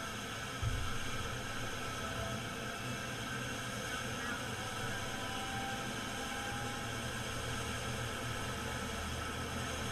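Medical helicopter running on the ground: a steady rushing noise with faint steady whining tones above it, and one low thump just under a second in.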